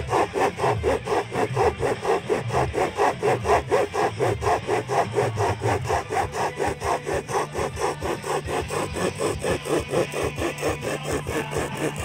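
Hand chain saw (pocket chain saw) being pulled back and forth through a log, making quick, even rasping strokes of the chain teeth cutting wood.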